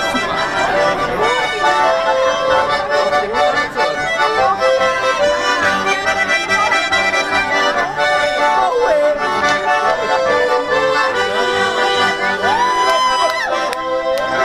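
Two Swiss diatonic button accordions (Schwyzerörgeli) playing a tune together in chords and melody, with voices chattering underneath.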